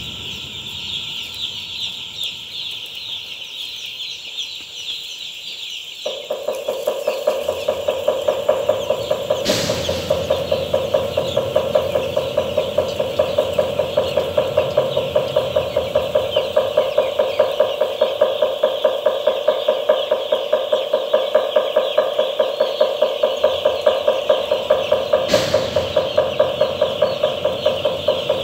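Continuous high peeping from a large flock of day-old broiler chicks. About six seconds in, a steady mechanical hum with a fast regular pulse, about three beats a second, joins it and keeps on. Two brief knocks are heard along the way.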